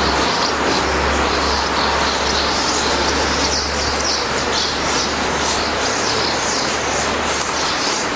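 Dry excavated sediment hissing and rattling through a large hand-held sieve as it is shaken back and forth. It makes a steady, even noise, with small birds chirping above it.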